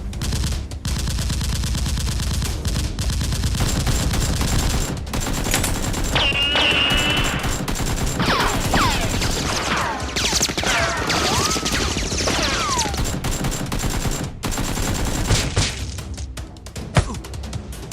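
Sustained rapid gunfire sound effects over background music, with several short falling whistle-like tones in the middle.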